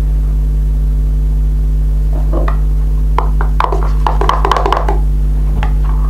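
Steady electrical hum running under everything, with a cluster of small clicks and scrapes from about two seconds in, as of a spoon working slime mixture in a bowl.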